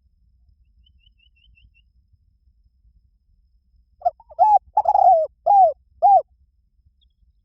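Spotted dove cooing: a phrase of about five loud, arched coo notes starting about four seconds in. Faint quick high chirps from a small bird come earlier.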